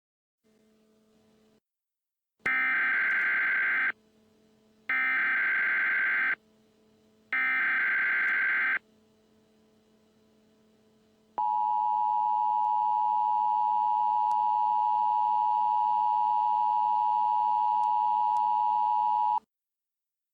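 Emergency Alert System signal: three short bursts of SAME header data, each about a second and a half with a gap of about a second between them, followed by the two-tone EAS attention signal held steady for about eight seconds before it cuts off.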